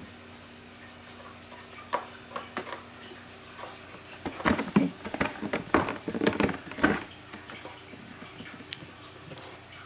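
Cats moving about in a cardboard box, scratching and rustling on the corrugated cardboard scratcher and paper shred: a few light clicks, then a burst of scratchy rustling about four seconds in that stops suddenly near the seven-second mark.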